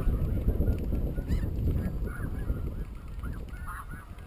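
Chorus of snow goose calls: many short, overlapping honks, with wind rumbling on the microphone underneath.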